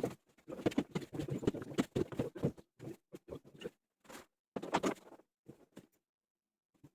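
Irregular scraping, rattling and knocking of hand repair work on washing-machine parts. A dense stretch comes first, then a few short separate bursts.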